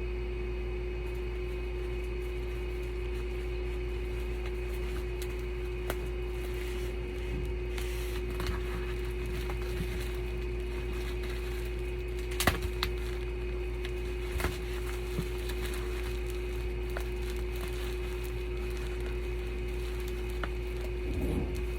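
Scattered light knocks and clicks as a parcel and its packaging are handled, the sharpest one about twelve seconds in, over a steady electrical hum.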